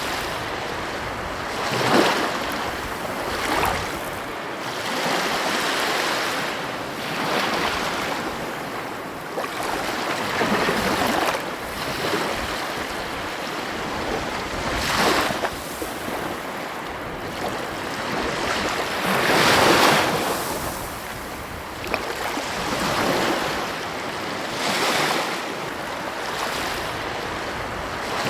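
Ocean waves breaking and washing ashore in uneven surges every few seconds, with wind on the microphone.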